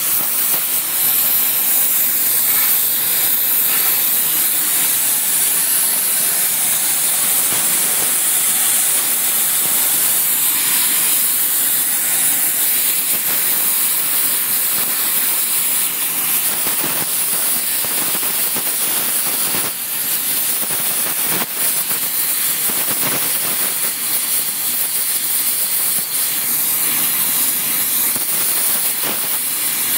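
Flame torch hissing steadily as it heats the edge of a steel cane sugar hammer to braze on TufCote hardfacing cord, dipping briefly a couple of times about two-thirds through.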